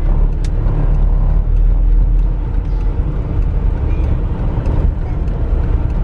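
A vehicle driving along an unpaved dirt road: a steady low rumble of engine and tyres, with scattered small clicks and rattles.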